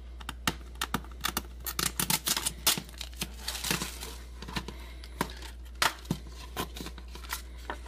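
Plastic Blu-ray case being handled as its seal stickers are peeled off the edge and the case is opened: an irregular run of sharp plastic clicks, crackles and tearing.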